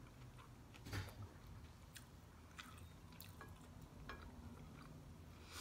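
Quiet eating-by-hand sounds: fingers picking the flesh off a crispy fried round scad (galunggong) on a ceramic plate, with faint scattered clicks and small smacks. The loudest comes about a second in.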